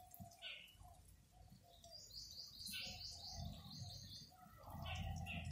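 Faint bird chirping: a quick run of short, high chirps about two seconds in, with a few scattered single chirps, over a low background rumble.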